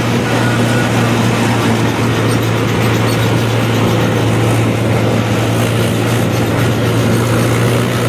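Diesel engine of farm machinery at a rice harvest running steadily, a loud constant low drone with no change in speed.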